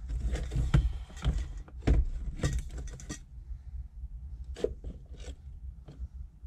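Hand tools and a removed accelerator pedal assembly being handled: a dense clatter of clicks, knocks and scrapes for about three seconds, then a few separate clicks.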